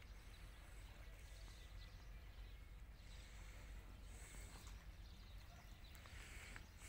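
Near silence: faint outdoor ambience with a low steady rumble and a few faint, brief high-pitched sounds.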